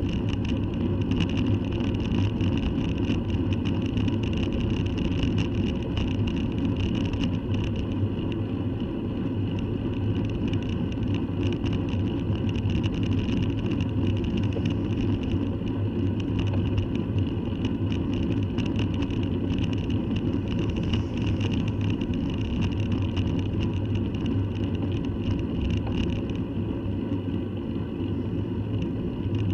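Steady rumble of wind and rolling noise picked up by a camera mounted on a moving bicycle, even and unbroken throughout.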